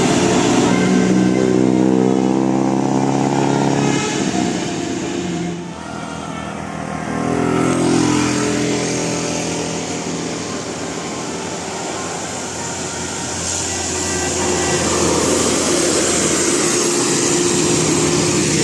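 Multi-tone 'basuri' telolet bus horn playing a stepping tune for the first few seconds and again briefly in the middle, over engine and traffic noise.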